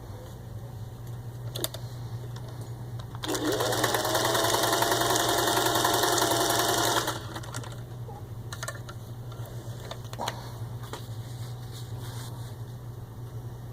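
Singer 500A Rocketeer sewing machine stitching through four layers of soft leather: a low hum, then about three seconds in the motor speeds up and the machine runs fast for about four seconds before slowing back. A few light clicks follow.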